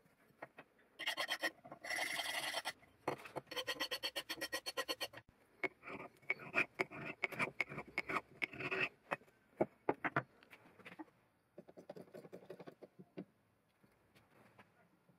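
Quick rubbing and scraping strokes on a carbon-steel knife blade, worked by hand, in several fast bursts through the first nine seconds or so. After that come fainter scattered taps and ticks as it is handled.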